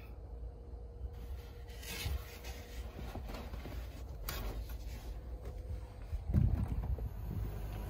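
Ursa Minor pop-up camper roof on a Jeep Wrangler being pushed open by hand from inside: scattered knocks and rustling, then a heavy low thump about six seconds in.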